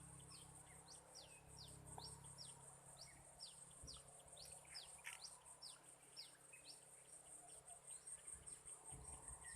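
Faint birdsong and insects: many short, falling chirps, about three a second, over a steady high insect buzz.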